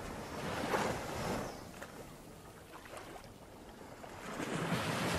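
Outdoor rushing noise, swelling about a second in and again near the end.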